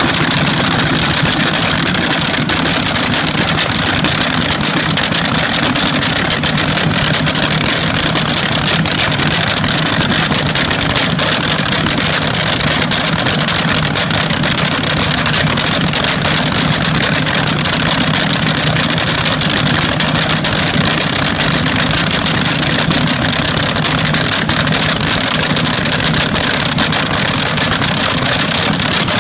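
Old front-engine dragster's supercharged V8 idling, very loud and steady with a fast pulsing exhaust beat and no revving.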